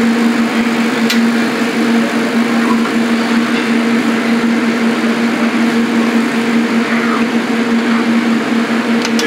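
Steady drone of commercial kitchen machinery, with a constant low hum under a rushing noise.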